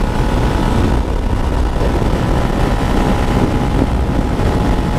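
Motorcycle cruising at about 105 km/h: a steady engine note under a loud, even rush of wind over the rider's helmet-mounted microphone.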